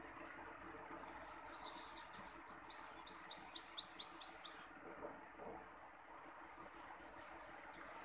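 Prothonotary warbler singing: a few soft twittering notes, then a loud run of about eight quick rising 'sweet' notes, about four a second, lasting under two seconds. A faint steady hiss lies under it.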